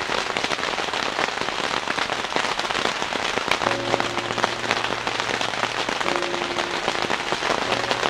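Heavy rain falling steadily, a dense patter of drops striking close by.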